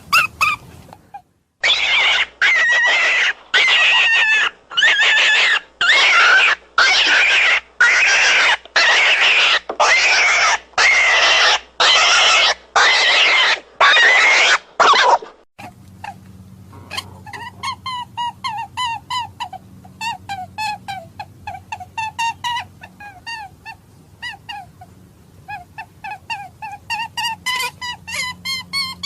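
Hare distress calls, the sound used as predator bait. A long run of loud, harsh screams comes about one and a half a second, stops about halfway through, and after a short break gives way to a quieter, faster series of short high squeaks, about three a second.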